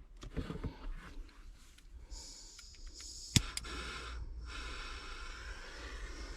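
Light handling rustles, then a small hand-held gas torch hissing steadily from about two seconds in, with one sharp click about a second later.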